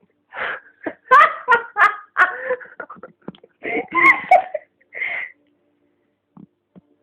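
A pet cat making a quick run of short, pitched vocal sounds for about five seconds, followed by two faint ticks near the end.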